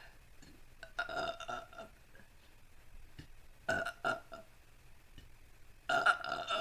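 A woman burping three times, about a second, four seconds and six seconds in, each burp short and pitched.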